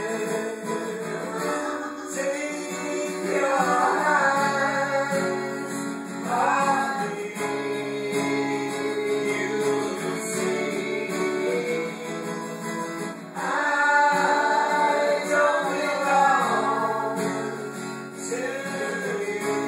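Music: a song with strummed acoustic guitar and a singing voice.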